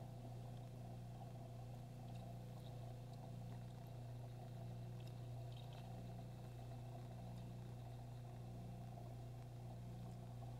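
Steady low hum of running aquarium equipment, with a few faint ticks here and there.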